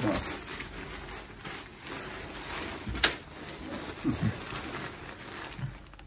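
Tent fabric rustling as a folded tent is squeezed and strapped tight by hand, with a single sharp click about halfway through.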